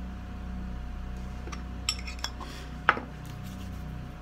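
A small metal lip-balm tin being handled and its lid closed: a few sharp metallic clicks and clinks, the loudest about three seconds in, over a steady low hum.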